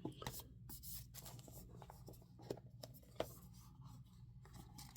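Faint rustling and scratching with scattered light clicks: hands handling a pocket knife and its packaging.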